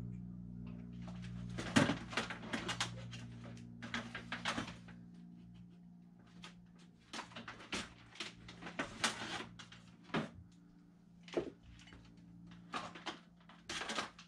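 Irregular clicks, knocks and rattles from a quick-release bar clamp being worked onto the edge of a thin aluminium sheet on a metal bench, the sheet rattling against the bench top.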